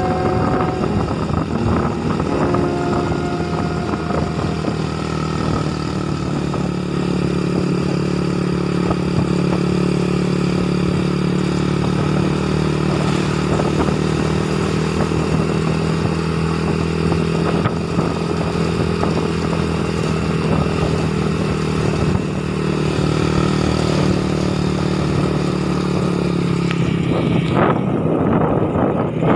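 Motorcycle engine running steadily at cruising speed, heard from the rider's position, with wind rumbling on the microphone near the end.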